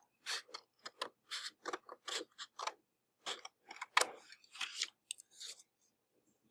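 Scissors cutting paper: a quick series of snips, stopping near the end.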